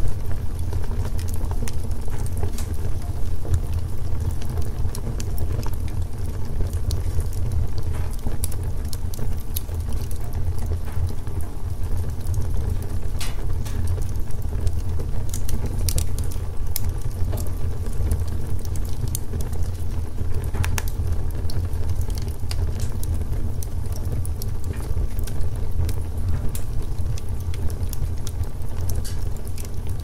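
Wood logs burning in a fireplace: a steady low rumble of flame with frequent small crackles and pops, and a few sharper snaps scattered through.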